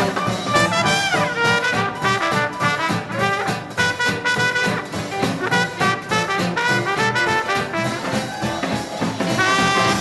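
Live hot-jazz dance band playing an up-tempo number, with a trumpet lead over a drum kit keeping a steady beat. A horn note slides down about a second in.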